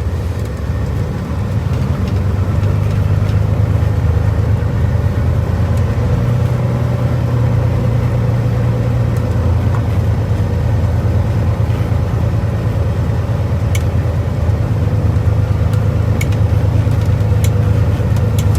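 Vehicle engine and road noise heard from inside the cab while driving: a steady low hum that grows a little louder about two seconds in and then holds. A few faint clicks come near the end.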